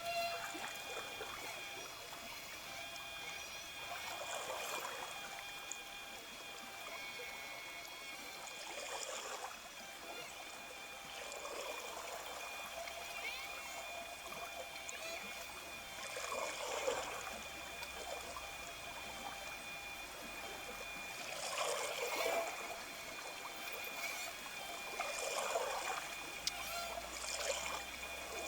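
Water trickling and splashing steadily, like a small stream, swelling briefly every few seconds.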